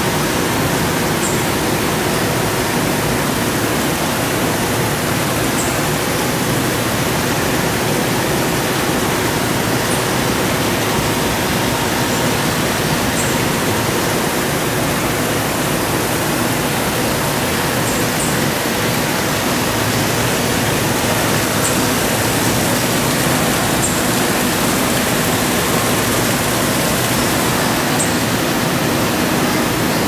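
Steady rush of a small waterfall, with faint short high chirps every few seconds.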